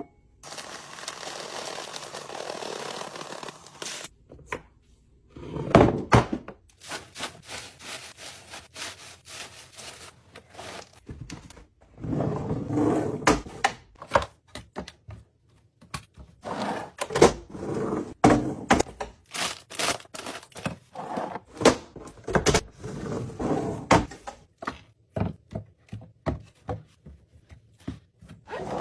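Kitchen items and containers being handled and set down: a steady hiss for the first few seconds, then a long run of irregular knocks, clicks and thunks.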